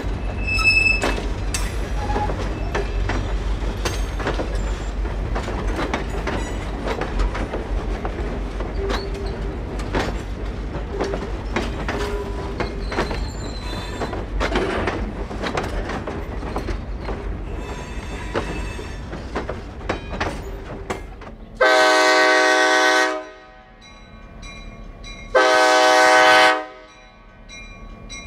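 F40PHM-2C diesel-electric locomotive running with its train: a steady low rumble with many short clicks of wheels on the rails. Near the end the locomotive's horn sounds two long blasts a few seconds apart, with a third just beginning.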